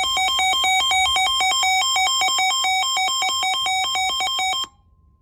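A weather alert radio's electronic alarm: loud, fast beeping that switches rapidly between several pitches, several changes a second. It signals a received warning. It cuts off abruptly about four and a half seconds in, leaving a faint steady tone for a moment.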